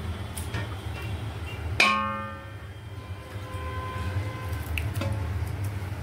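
A metal utensil strikes the aluminium cooking pot once, about two seconds in, leaving a ringing tone that fades over a second or so, with a few lighter clinks of utensil on pot around it. A steady low hum runs underneath.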